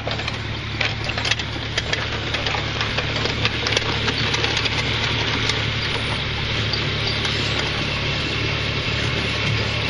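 Hard wheels of a child's John Deere 720 pedal tractor crunching and crackling over gravel as it is pedalled, most busily in the first few seconds, over a steady low hum.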